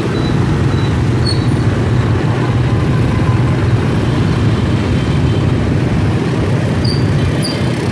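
Steady drone of motor scooter engines and dense city traffic heard from among the riders, with no pause or change.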